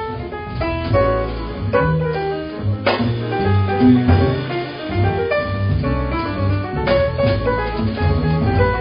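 Live small-group jazz: grand piano playing a run of short notes and chords, backed by double bass and a drum kit with a few sharp strikes.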